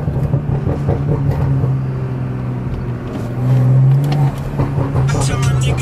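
BMW M340i's turbocharged straight-six, burble-tuned and running on E85, heard from inside the cabin: the engine comes off throttle into a string of exhaust pops and crackles, then pulls again with a steady note for about a second near the middle.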